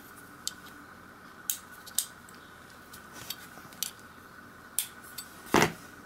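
Light metallic clicks and clinks of a tool working the pulley screw on a vintage Sachs Huret rear derailleur cage, scattered irregularly, with one louder metal clatter shortly before the end.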